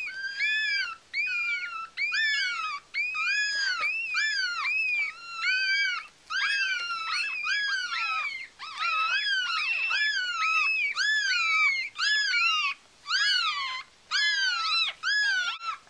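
Newborn Yorkshire terrier puppies crying: a steady run of high, squeaky calls that rise and fall in pitch, about one and a half a second, with two puppies overlapping near the middle.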